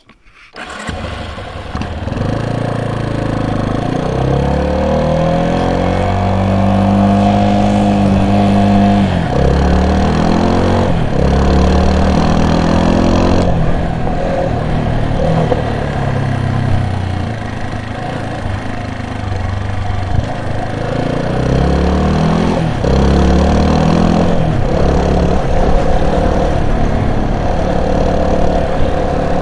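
A vehicle's engine running under way, its pitch climbing as it revs and dropping back in steps several times, as with gear changes.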